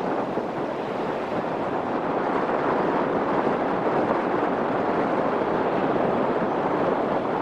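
Jet airliner engines running: a steady, even noise with no whine or rise and fall, at the same level throughout.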